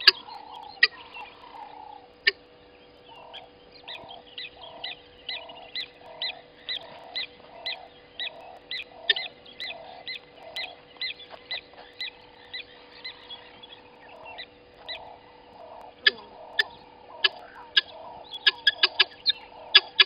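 Helmeted guineafowl calling: a two-part note repeated evenly about twice a second, each a short low note with a sharp high click, breaking into faster, sharper notes near the end.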